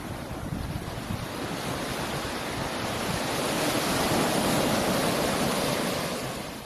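Small waves breaking and washing up onto a sandy beach: a steady rush of surf that swells louder midway as a wave breaks, then falls away near the end.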